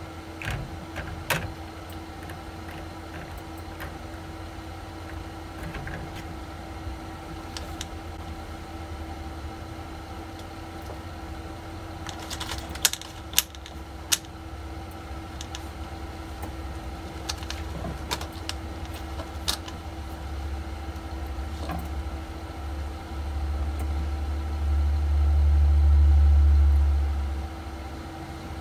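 Scattered sharp clicks of a computer mouse over a steady low room hum with a faint whine. A louder low rumble swells up near the end, then dies away.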